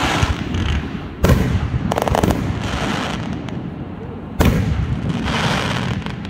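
Aerial fireworks bursting overhead: a loud bang about a second in and another past four seconds, each trailing off in a long echo, with a quick run of crackling around two seconds in.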